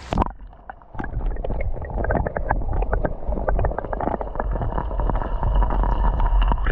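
Kayak being paddled on a river: a continuous low rumble of wind on the microphone, with many small knocks and water sounds from the paddle and hull.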